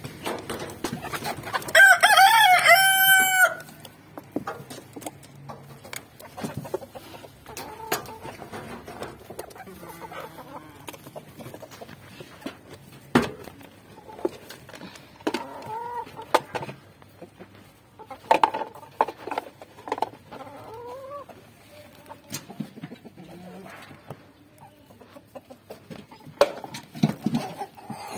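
A rooster crows once, loud and long, about two seconds in. Hens cluck softly at intervals after it, with scattered sharp taps.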